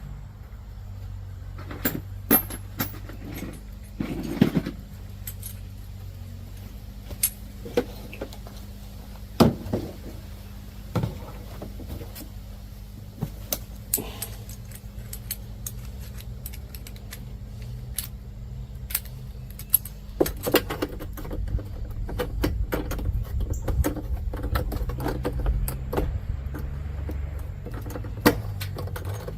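Sharp metallic clinks, knocks and rattles of tools and parts being handled on the mower, scattered irregularly, over a steady low hum that grows louder about two-thirds of the way through.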